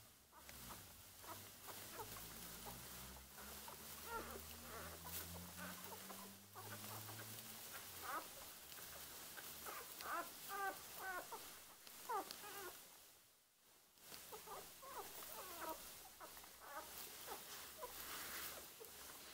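Newborn Border Collie puppies squeaking while they nurse, with short high squeaks scattered throughout and a brief lull about thirteen seconds in.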